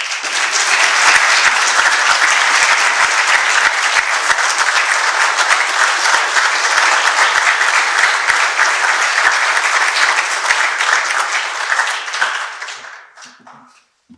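An audience applauding loudly. It starts suddenly and dies away over the last couple of seconds.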